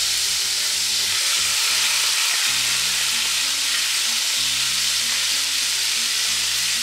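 Chicken thighs, skin on, sizzling in hot oil in a frying pan: a steady hiss, the sound of oil hot enough to sear the meat rather than boil it.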